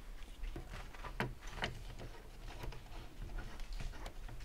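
A few sharp clicks and clanks from hand tools being worked, over a steady low hum.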